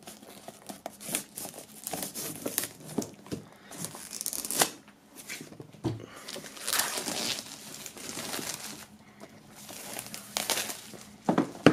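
Plastic shrink-wrap film being slit open at its heat-sealed seam with a knife and pulled off a cardboard box, crinkling and tearing in irregular bursts.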